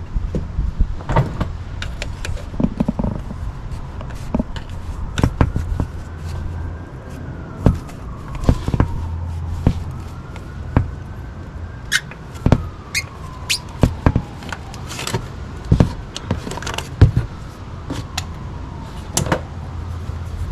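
Irregular sharp metal clicks and knocks from tools and a spin-on oil filter being worked loose under the car. A steady low hum runs underneath, and a faint whine slowly rises and falls several times.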